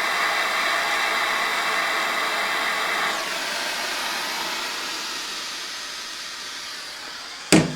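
Steady hissing rush of a heating tool playing heat on a carburetor's brass jet nozzle to loosen it. It eases off about three seconds in and fades, and a single sharp knock comes near the end.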